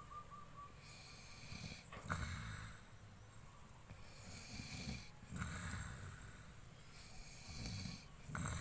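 Snoring: rasping in-breaths and out-breaths repeating about every three seconds, three cycles in all.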